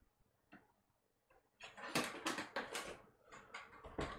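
Cardboard box and packaging being handled and pulled open by hand: a quick run of crackling, clicking rustles that starts about a second and a half in and thins out near the end.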